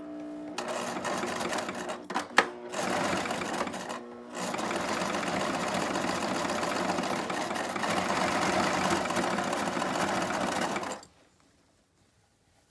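Brother LX3125 sewing machine running on a zigzag stitch through doubled-up hair weft tracks. It stops and starts twice in the first four seconds, with a sharp click at one pause, then runs steadily and stops suddenly about eleven seconds in.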